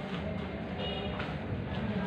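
Steady hiss and low hum of room noise, with a few faint soft taps and a brief high-pitched chirp about a second in.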